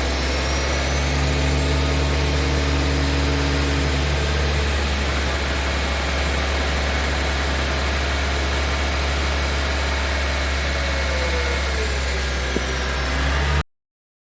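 2016 Honda Civic running with a steady low hum, cutting off suddenly near the end.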